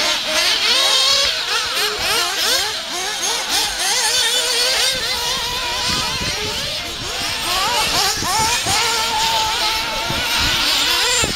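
Several radio-controlled off-road buggies racing, their small high-revving engines rising and falling in pitch as the throttles are worked and overlapping one another. Late on, one engine holds a steady high pitch for a couple of seconds before dropping off.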